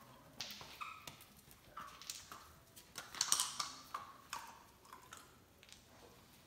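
German Shepherd puppy's claws clicking and scrabbling on a hardwood floor as it scampers and pounces, in irregular taps and scuffs. The loudest cluster comes about three seconds in.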